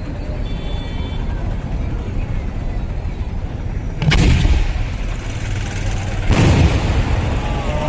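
Two loud firework blasts about two seconds apart, each a sudden bang with a short rumbling tail, from traditional Kerala temple firecrackers made mainly for their sound. A steady low rumble runs underneath.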